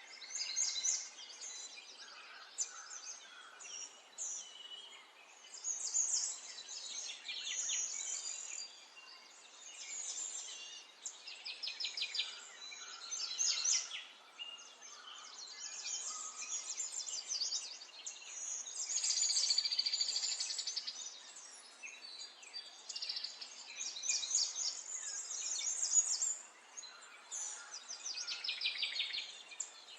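Several small garden birds chirping and singing at once, with overlapping quick chirps and rapid trills that swell and fade every few seconds.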